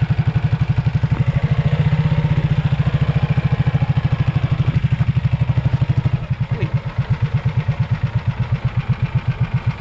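Small outrigger fishing boat's engine running with a fast, even pulsing beat. About six seconds in it eases off, quieter and with slower pulses, as the boat slows down.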